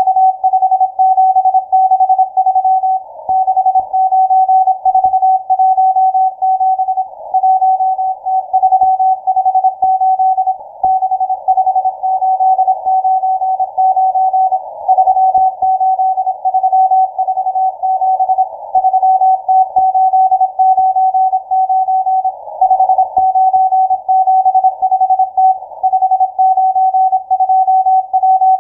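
Morse code from the M12 numbers station on shortwave: a single beep tone keyed on and off in rapid dots and dashes without pause, with a band of shortwave hiss around it.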